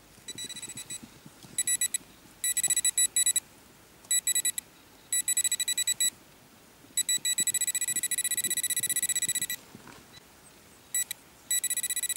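Garrett Pro-Pointer pinpointer giving its rapid pulsed beeping alert, in repeated runs as the probe tip is worked against a buried target in the soil. The longest run lasts about two and a half seconds, past the middle. It is a much stronger signal.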